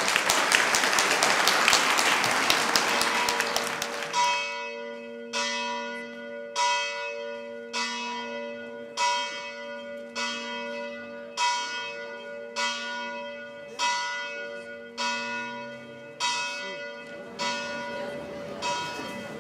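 Applause for the first few seconds, then a single church bell struck at a steady pace, about one stroke a second, each stroke ringing on with the same set of tones.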